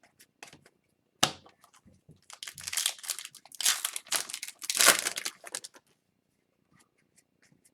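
Foil wrapper of a hockey card pack being torn open and crinkled: a sharp rip about a second in, then a few seconds of crinkling, followed by a few faint clicks.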